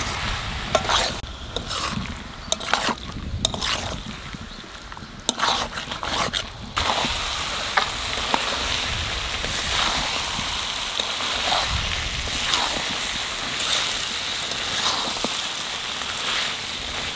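Chicken pieces frying in spiced oil and masala in a kadai (the kosha stage of a curry), stirred and scraped with a spatula. Scattered scrapes and clicks at first; about seven seconds in the sizzle turns steadier and louder, with the occasional scrape of the spatula against the pan.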